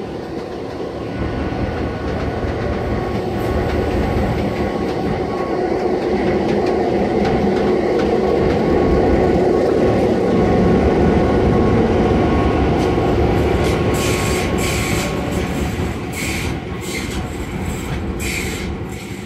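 Heritage passenger train running past: carriage wheels rumbling on the rails, then a New South Wales 42-class diesel-electric locomotive's engine, an EMD 567 V16 two-stroke, loudest as it goes by. A run of sharp clacks from the wheels follows near the end as the train draws away.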